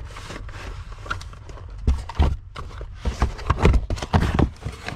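Small cardboard parts boxes being shuffled and lifted inside a large shipping carton: cardboard rustling and scraping, with a run of hollow knocks as the boxes bump against each other and the carton, coming thicker from about two seconds in.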